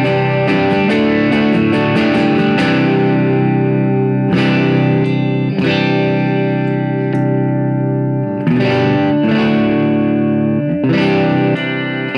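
Schecter Telecaster-style electric guitar played through a tube amp with its pickups switched to series: a run of quickly picked notes, then several strummed chords left to ring.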